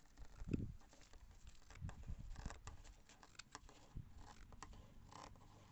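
Large sewing scissors cutting through lining fabric: faint, irregular snips and crunches of the blades closing, with a soft thump about half a second in.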